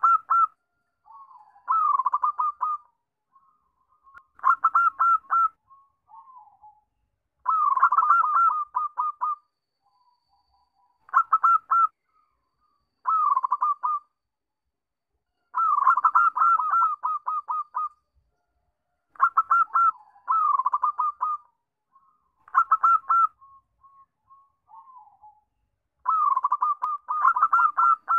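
Zebra dove (perkutut) singing its cooing song: about ten phrases of quick, rolling staccato coos, each a second or two long, with short pauses and softer notes between them.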